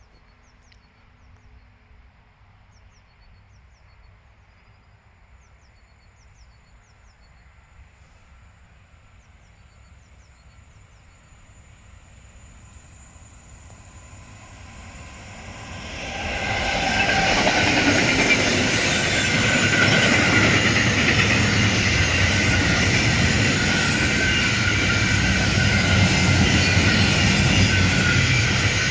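A train approaching and passing close by. Faint at first, its rolling noise builds and turns loud a little past halfway, then carries on steadily as the cars go by. Faint bird chirps come before it arrives.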